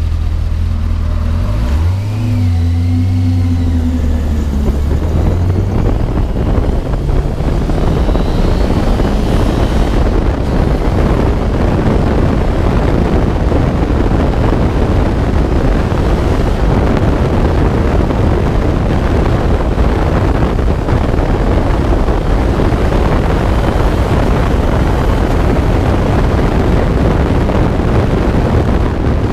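Honda CBR1000RR Fireblade inline-four engine in an MNR Vortx kit car, heard onboard: running at low revs with a short blip of the throttle, then accelerating hard from about five seconds in and running loud at speed, with wind rushing over the open cockpit.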